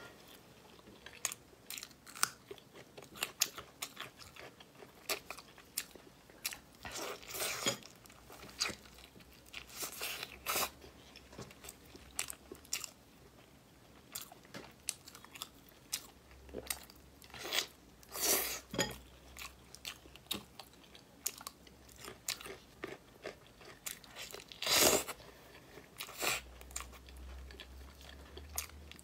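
Close-up eating sounds of a person chewing and biting pieces of Sichuan peppercorn chicken, with irregular wet crunches and a few louder bites.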